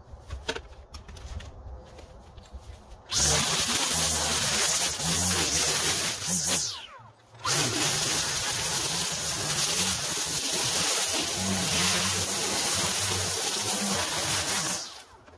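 Small gas engine of lawn equipment running hard, starting suddenly a few seconds in. It drops out briefly around the middle, runs again, and stops abruptly near the end.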